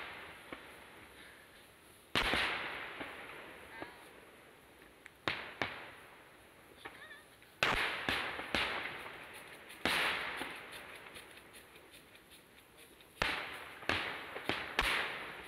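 Aerial firework shells bursting: about ten sharp bangs at irregular intervals, several coming in quick pairs, each trailing off over a second or more.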